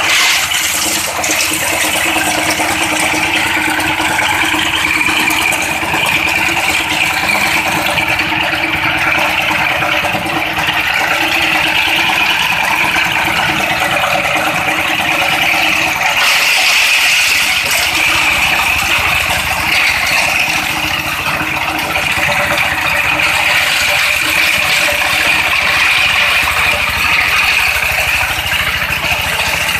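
A 16 hp single-cylinder dompeng diesel engine running under load, driving a grinder that is crushing roof tiles, with a steady dense rattling. About halfway through, the low hum drops away and the rattle turns brighter.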